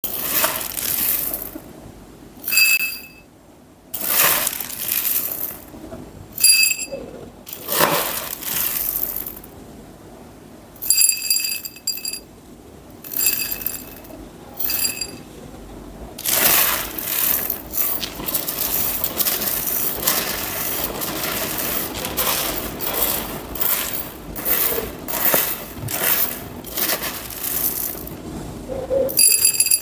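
Dried mung beans poured in a series of short and long pours, rattling and pattering as they land; on several pours the container rings with a bright, clear tone.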